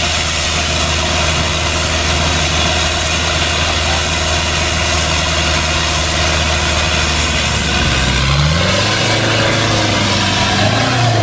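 Off-road truck's engine running steadily under load as it churns through deep mud, with a broad hiss. About eight seconds in, the engine note changes and rises as it revs.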